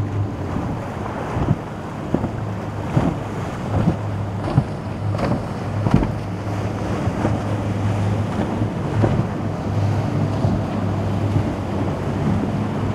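Boat engine hum running steadily over the wash of waves, with gusty wind buffeting the microphone. A string of sharp thumps falls in the first half, the strongest about six seconds in.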